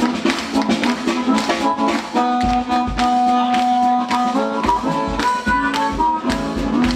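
Live band music: a harmonica played into a microphone, with long held notes, over a strummed acoustic guitar keeping a steady rhythm.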